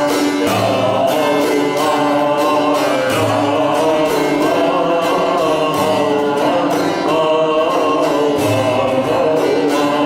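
Devotional song: voices singing a melody over a strummed, plucked string instrument with a steady rhythm.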